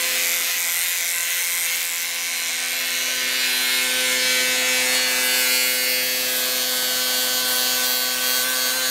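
Electric beard trimmer running steadily at a constant buzzing hum, cutting facial hair.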